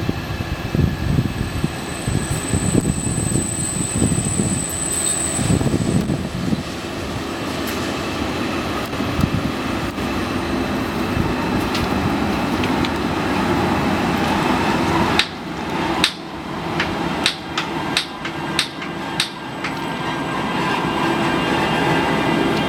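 DB class 120 electric locomotive rolling slowly toward the platform, its running noise growing louder toward the end. A high thin whine lasts a few seconds about two seconds in, and about fifteen seconds in comes a run of about eight sharp clicks, roughly half a second apart, as the wheels cross rail joints and points.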